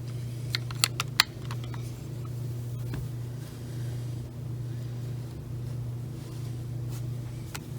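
Steady low background hum, with a few light clicks and taps about a second in and once near the end, as of plastic puzzle cubes being handled and set down.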